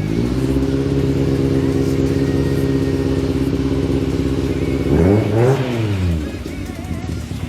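Toyota AE86's 4A-GE naturally aspirated four-cylinder engine with individual throttle bodies, running under way at steady revs, then revving up and dropping back about five seconds in.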